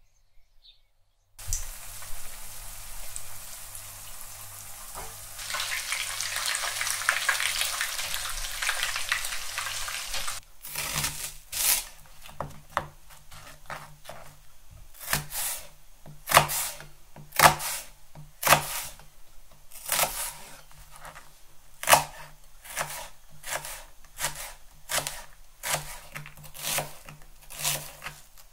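A kitchen knife chopping shallots on a plastic cutting board: sharp taps, about two a second and unevenly spaced, from about ten seconds in. Before that, a steady crackling hiss that grows louder for a few seconds in the middle.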